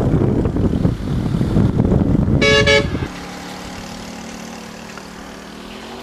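Wind noise buffeting the microphone, with a vehicle horn sounding two short toots in quick succession about two and a half seconds in. After the wind drops, a faint steady low hum remains.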